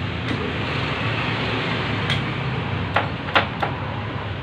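Metal lathe running with a steady low hum and hiss from its motor and gears, with a few sharp clicks in the second half.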